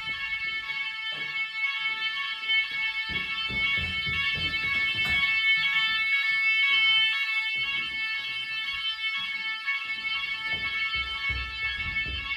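Nugelec fire alarm sounder going off in a test: a loud, steady electronic alarm tone with several high overtones that does not pulse or break, with irregular low rumbling underneath.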